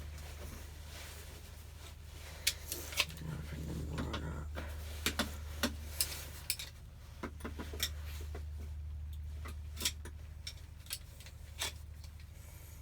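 Scattered metallic clinks and taps of spanners, nuts and bolts being handled during scooter reassembly, about twenty light knocks at uneven intervals, over a steady low hum.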